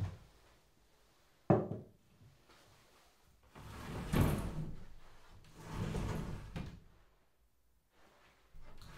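A small water pot set down with a sharp knock on the floor, then a paper-covered sliding door (fusuma) slid shut in two strokes, each a rumbling slide along its wooden track; near the end the door starts to slide open again.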